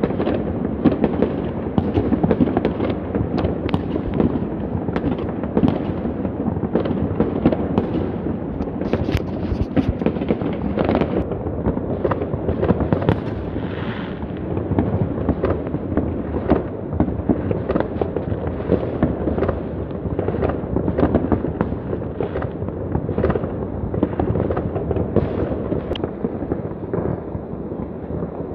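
Many distant fireworks going off at once: a dense, unbroken barrage of overlapping bangs and crackles, with single louder bangs standing out every second or so.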